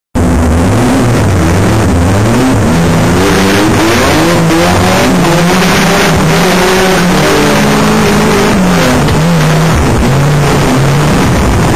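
Banger racing car's engine revving hard on board, its pitch rising and falling again and again as the throttle opens and closes around the track, over loud rushing noise.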